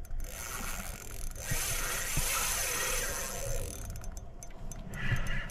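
Fishing reel's drag ratcheting as a hooked fish pulls out line; it swells through the middle and eases off about four seconds in.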